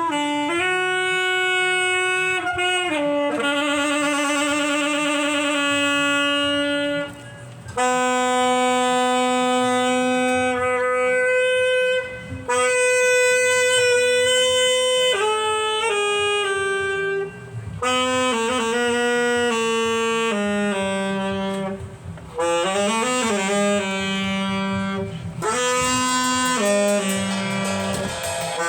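A saxophone plays a slow melody in long held notes, with short breaks between phrases. A note held about four seconds in has a wide vibrato.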